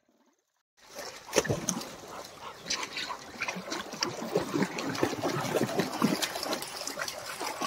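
Near silence, then from about a second in, water splashing and trickling as a Labrador wades through a shallow stream, with many quick sharp splashes.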